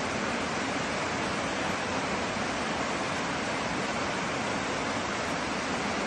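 Mountain stream tumbling down a rocky cascade between snowbanks: a steady rush of falling water.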